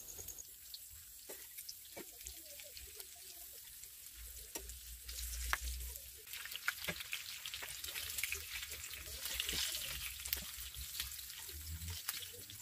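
Breaded chicken pieces sizzling and crackling as they shallow-fry in oil in a stainless steel skillet. Metal tongs click against the pan now and then as the pieces are turned.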